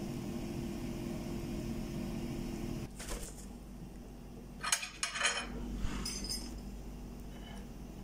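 Metal cutlery clinking and scraping against a china plate as a cake is cut and a slice lifted, with a cluster of sharp clinks about halfway through and another shortly after. Before that, a steady low hum that stops abruptly about three seconds in.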